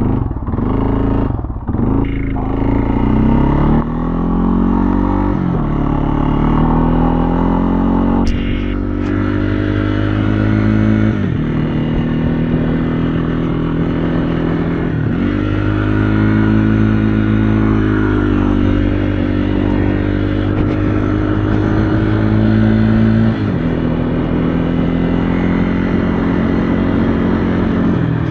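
A vehicle's engine running while under way, its pitch climbing and then dropping back several times as the throttle and speed change. There is a single sharp click about eight seconds in.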